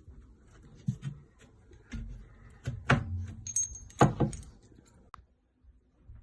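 Knocks and thumps of particleboard furniture panels being handled and fitted together during flat-pack assembly, the loudest pair near three and four seconds in, with a brief high squeak between them.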